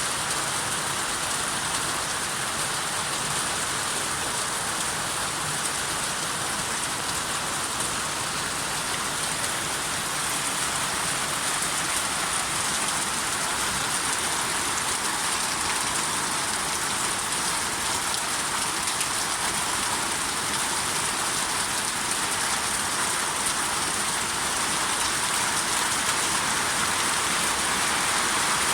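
Steady rain falling, an even hiss that grows slightly louder near the end.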